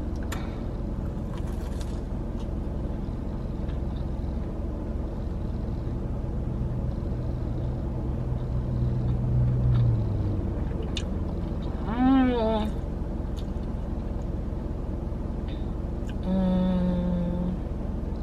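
Steady low rumble of an idling car, heard from inside the vehicle. A low hum swells for a few seconds midway, and a woman makes two short hummed "mm" sounds while eating: one falling in pitch about twelve seconds in, and one held near the end.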